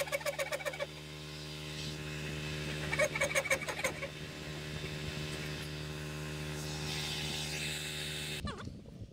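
Hand saw cutting through a timber beam in quick rhythmic strokes, each stroke giving a short pitched squeak, in two spells: through the first second and again about three seconds in. A steady low machine hum runs underneath and cuts off suddenly near the end.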